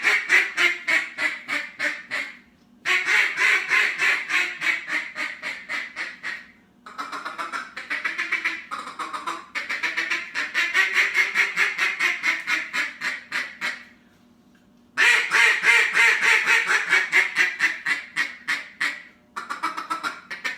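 Hand-turned duck call blown in rapid runs of quacking notes, about ten a second, each run lasting a few seconds with short breaks between.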